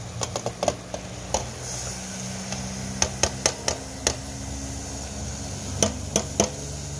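A bowl clinking and knocking against the rim of a stainless-steel pot as sliced bamboo shoots are tipped and slid in. The knocks come in a few quick clusters, near the start, about three seconds in and near the end, over a steady low hum.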